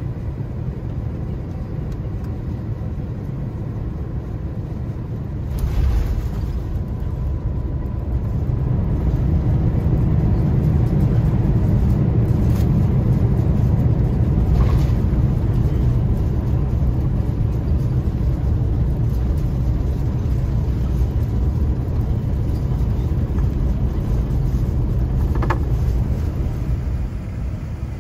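Airliner cabin noise of an Airbus A350-900 landing: a steady low rumble, a thump about six seconds in as the wheels touch down, then a louder rumble for some fifteen seconds as the aircraft slows on the runway, easing near the end.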